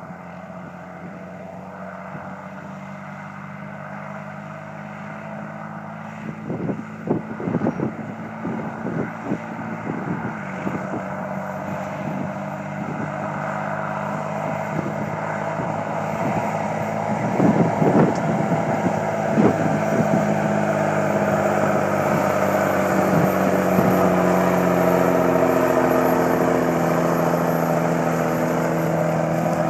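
Diesel engine of a JCB Fastrac 7230 tractor (a Cummins six-cylinder) hauling a loaded sugar beet trailer beside a running beet harvester, growing steadily louder as it comes close, its pitch shifting in the second half. A few clusters of knocks or buffets sound about seven and eighteen seconds in.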